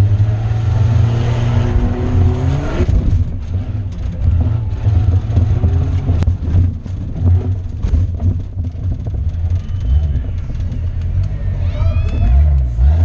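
Off-road tuff truck's engine running hard under load, heard from inside the cab. It revs up and falls away about three seconds in, with repeated sharp knocks and rattles as the truck bounces over the course.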